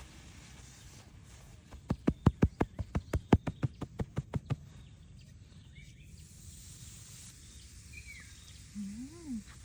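A quick, even run of about sixteen sharp knocks or taps, roughly six a second, lasting about two and a half seconds, over a low outdoor background. Near the end comes a short pitched sound that rises and falls.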